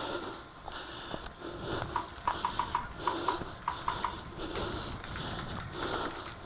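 Footsteps and gear rustle of a player moving over dry, stony ground, with a quick, uneven run of about ten short, sharp clicks in the middle.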